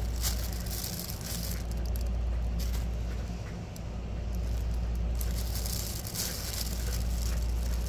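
Nylon fabric of a pop-up cat tunnel rustling and crinkling as a cat rolls and shifts inside it. The rustling comes in bursts near the start and again around five to six seconds in, over a steady low hum.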